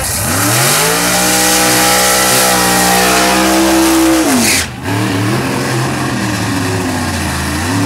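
Drag car's engine revving up and held at high revs during a burnout, with the spinning rear tyres adding a loud hiss. A little over four seconds in the revs drop, and the engine carries on at lower, uneven revs.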